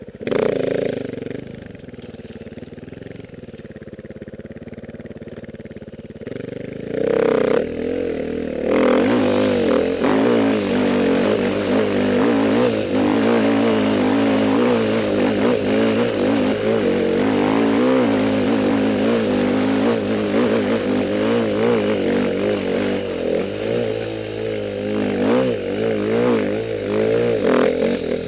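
Dirt bike engine heard from the rider's own machine: it idles for several seconds and is blipped once about seven seconds in. It then runs under load along a rough trail, its pitch rising and falling with the throttle and with knocks from the ground, and drops back near the end as the bike stops.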